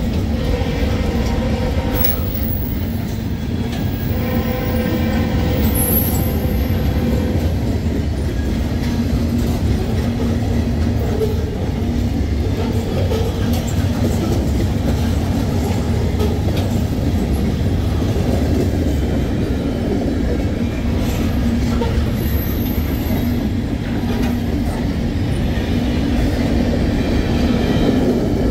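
A train running on the rails: a steady, heavy rumble with a low hum through it.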